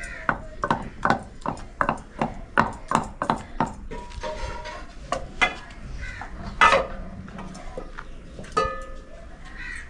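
Long wooden pestle pounding soft roasted eggplant in a steel pot: steady knocks, about three a second, for the first four seconds, then fewer, scattered knocks.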